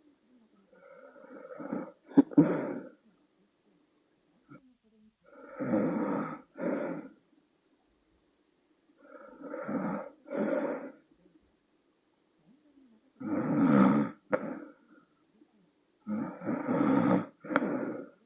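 A woman around forty snoring in her sleep: five snores about every four seconds, each breaking into two parts, with near silence between them. There is a sharp click in the first and the last snore.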